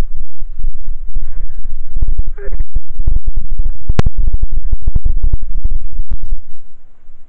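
Loud, irregular buffeting and rubbing on a handheld camera's microphone as it is carried at speed over leaf-strewn forest ground, with one sharp click about four seconds in. Near the end the jostling stops and only a softer hiss remains.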